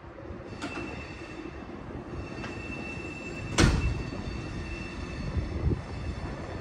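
Passenger train rolling along the rails, with a low rumble throughout and a steady high-pitched wheel squeal for a few seconds. Several sharp knocks from the wheels on the track come through it, the loudest about three and a half seconds in.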